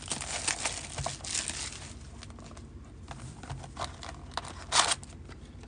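Clear plastic shrink wrap being torn and crinkled off a cardboard box of trading cards, in irregular crackles, with louder crinkles about a second and a half in and again near five seconds.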